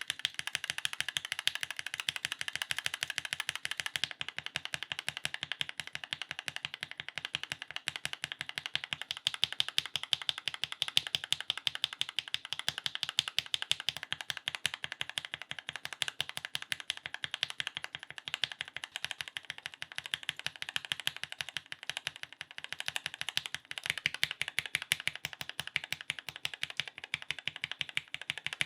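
Fast continuous typing on a Glorious GMMK Pro mechanical keyboard with Gateron linear switches (China Joy, Ink Black V2 and lubed Yellows) under doubleshot ABS keycaps: a dense, even patter of keystroke clacks. The character of the clacks changes about four seconds in and again about five seconds before the end, as one switch set follows another.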